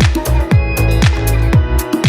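Electronic dance music with a thumping kick drum about twice a second and a heavy bass line.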